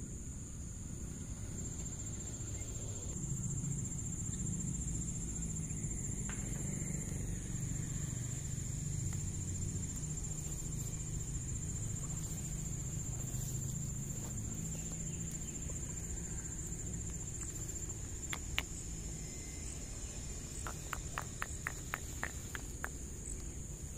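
A steady, high-pitched insect trill, cricket-like, running without a break over a low rumble. Near the end comes a quick run of about eight sharp clicks, about four a second.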